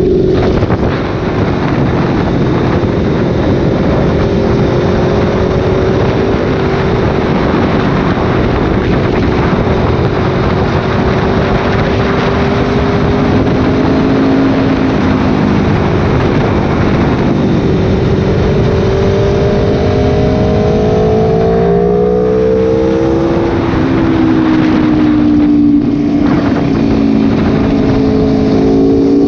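Motorcycle engine running at road speed under heavy wind rush. The engine note holds steady, then climbs under acceleration in the last third and drops back twice at gear changes.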